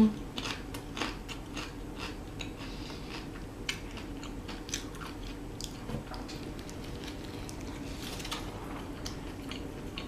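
A person chewing food close to the microphone: a run of small, irregular mouth clicks and soft crunches.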